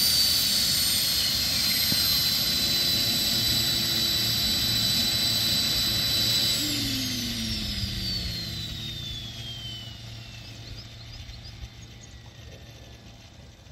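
Model Alouette II helicopter running on the ground with a steady high whine and rotor noise. About six and a half seconds in it is shut down: the whine falls in pitch and the sound fades as the rotor spins down.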